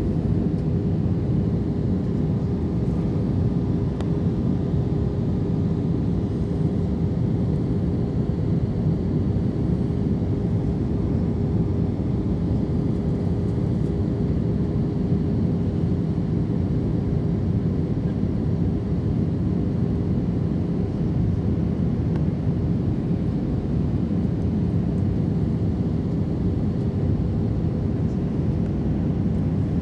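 Steady cabin noise inside an Airbus A319 descending to land, heard from a window seat over the wing. Engine and airflow make an even drone, with a steady mid-pitched hum running through it.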